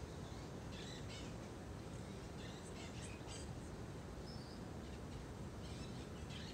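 Outdoor ambience: a steady low background rush with small birds chirping now and then.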